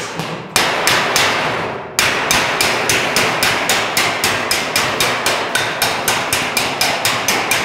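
Body slapper striking a bare steel car bonnet panel: one blow that rings on for about a second and a half, then a steady run of slaps about four to five a second, knocking down a heat-shrunk spot.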